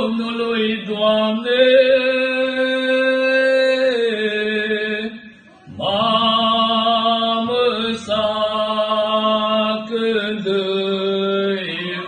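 Men singing a slow Romanian Christmas carol (colind) in long held notes over a steady low held note. The singing breaks off briefly about five seconds in, then picks up again.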